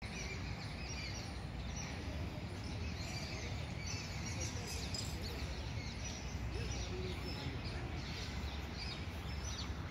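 Outdoor ambience: many small birds chirping on and off over a steady low background rumble.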